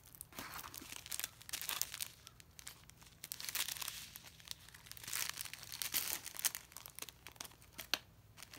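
Clear plastic packaging crinkling as a strip of small bags of diamond-painting drills is handled, in irregular bursts of rustling with sharp crackles, busiest in the middle.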